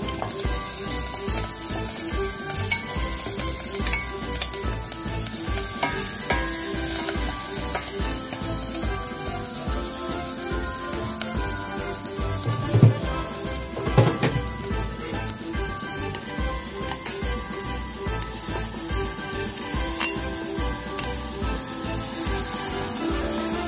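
Spice paste with chopped red chilli sizzling in hot oil in a stainless steel pot, stirred with a wooden spatula. The spatula knocks loudly against the pot twice, about halfway through.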